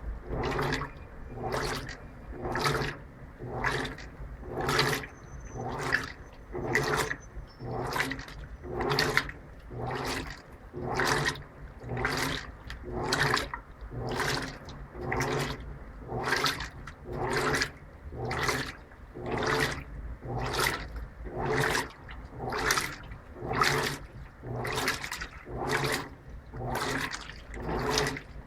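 Electrolux LTP15 top-load washing machine agitating in its Normal program without turbo agitation: the agitator swishes the water and laundry back and forth in a regular rhythm of about one slosh a second.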